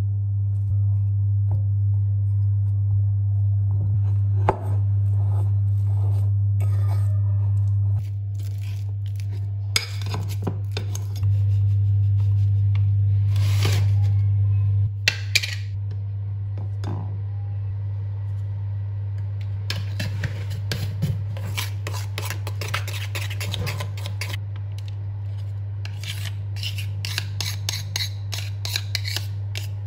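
Fork and spoon clinking and scraping against a glass mixing bowl as banana is mashed and cocoa is stirred into banana-bread batter, in many short irregular clicks that grow busier in the second half. A loud steady low hum runs underneath.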